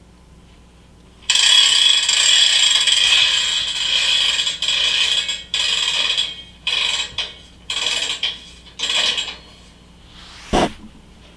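Ratcheting, scraping mechanical noise: one long burst of about four seconds, then four or five short bursts, and a single sharp click near the end.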